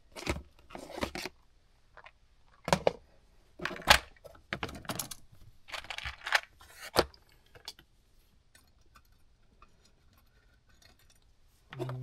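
Insulated crimp connectors and ring terminals rattling in a plastic compartment organizer box as they are rummaged through. The rattling comes in several short bursts and stops about seven seconds in.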